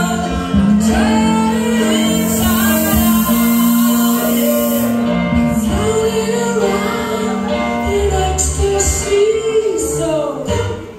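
Music: a song with singing over instrumental accompaniment and held bass notes.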